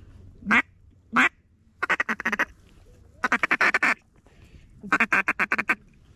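Hand-blown duck call: two single quacks, then three fast strings of clipped quacks, each string under a second long.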